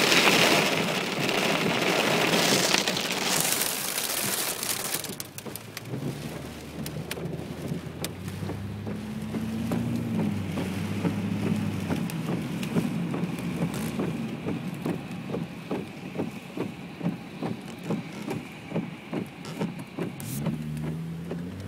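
Hail and heavy rain drumming on a car's roof and windscreen, heard from inside the car, easing after about five seconds to a lighter patter of scattered hits. The car's engine runs underneath and rises in pitch twice as it pulls forward.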